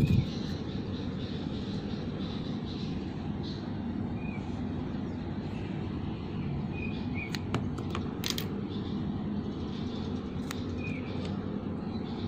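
Steady low background rumble of outdoor ambience, with a few short bird chirps and several sharp clicks.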